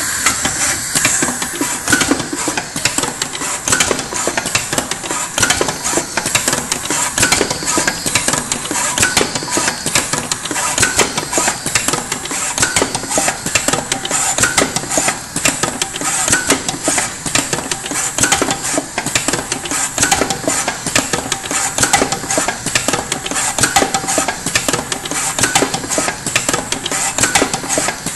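Automated production-line machinery running: a steady mechanical din with constant rapid clicking and metallic clatter.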